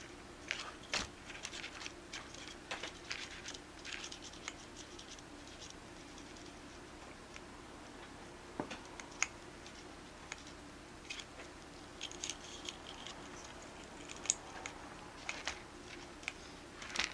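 Scattered light clicks and taps of small plastic and metal parts on an Axial SCX24 micro crawler as its shocks' preload is adjusted and the rig is handled. A faint steady hum runs underneath.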